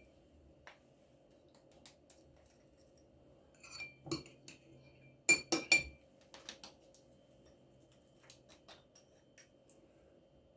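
Kitchen utensil clinking and tapping against a glass dish while leftover sauce is scraped out: a few light knocks, then three sharp ringing clinks a little after five seconds in, with scattered small taps afterwards.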